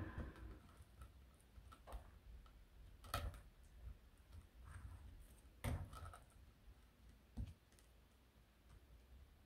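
Faint sounds of a butter knife spreading hummus on bread: soft scraping with scattered light clicks and taps, the sharpest about three and six seconds in.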